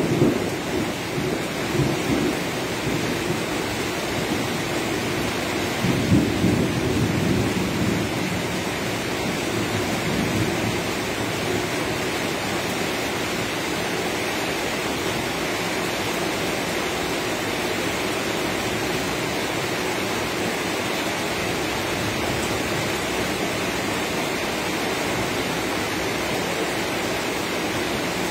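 Rain falling steadily, with low rumbles of thunder near the start and again about six seconds in.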